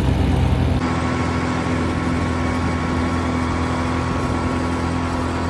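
A motor engine running steadily at low revs, with its tone shifting abruptly about a second in.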